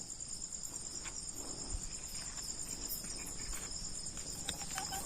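Crickets chirring in a steady, high, fast-pulsing chorus, with a few faint clicks scattered through it.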